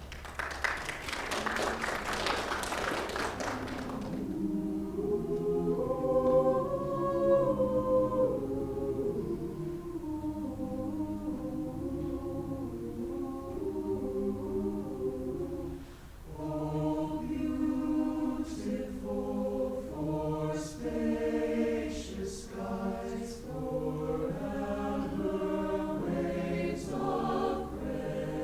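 A high school concert choir singing in parts, a medley of American melodies, with a brief break in the singing about halfway through. It is preceded in the first four seconds by a burst of applause.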